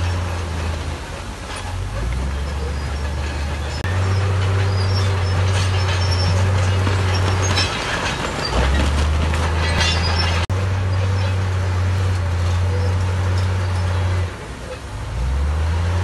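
Heavy construction machine's diesel engine running with a deep drone that jumps in pitch several times, with a rattling clatter about halfway through.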